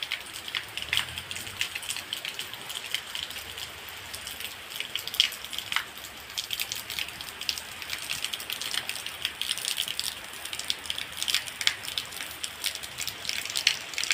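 Heavy rain falling: a steady hiss dotted with many sharp, close drop strikes.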